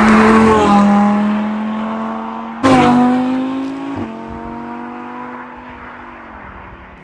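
Audi R8 V10 Plus's 5.2-litre V10 running at a high, steady pitch, jumping in loud at once and again sharply about two and a half seconds in, then easing down and settling to a lower idle near the end.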